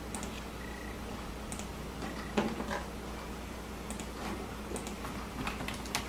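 Scattered light clicks of a computer keyboard and mouse, a few keystrokes at a time with gaps between, more of them near the end, over a low steady hum.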